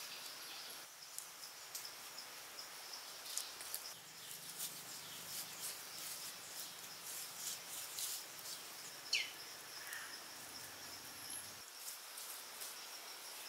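Forest ambience: insects droning steadily, with a bird giving a falling whistled call about nine seconds in. Short soft scrapes run through it as bare hands smooth wet mud.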